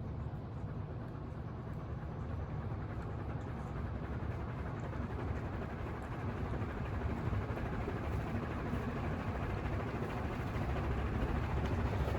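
1978 SMC 60F 140 cm ceiling fan running: a steady low hum and rush of air from the motor and blades, growing gradually louder.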